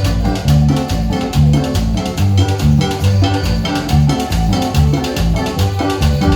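A song playing, with guitar and a prominent bass line over a steady beat.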